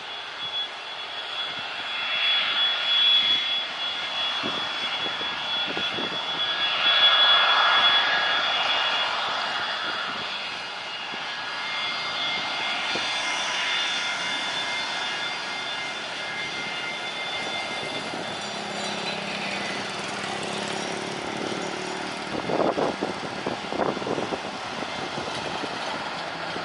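Boeing 737-200's Pratt & Whitney JT8D turbofans at take-off power on the take-off roll: a loud jet roar with a steady high whine, loudest about seven seconds in and easing as the aircraft rolls past. A few short thumps come near the end.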